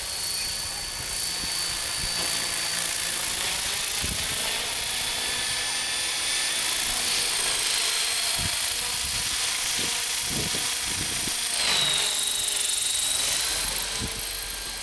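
Hurricane 500 radio-controlled model helicopter in flight, a steady high-pitched whine of its rotor and drive. About two-thirds of the way in it passes close and grows louder, its whine dropping in pitch as it goes by.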